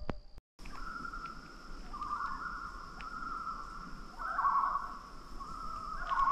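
Common loons calling across the pond: quavering tremolo calls that wobble rapidly in pitch, overlapping and swelling louder a few times, starting just after a short break about half a second in.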